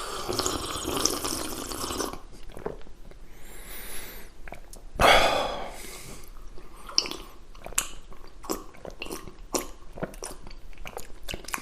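A person drinking: wet mouth and swallowing sounds with short clicks between them, and one louder breathy burst about five seconds in.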